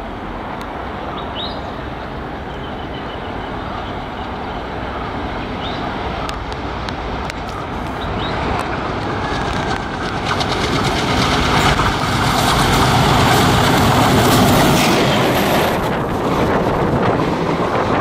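Alco-type diesel locomotive hauling a passenger train, approaching and passing close by, its engine sound growing steadily louder to a peak about twelve to fifteen seconds in. The coaches follow, rolling past with rapid wheel clatter over the rail joints.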